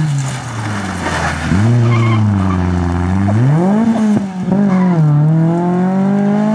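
Renault Twingo rally car's engine dropping in revs as it brakes into a bend, with brief tyre squeal. It then revs up hard as it accelerates out, shifts up about four seconds in and climbs again.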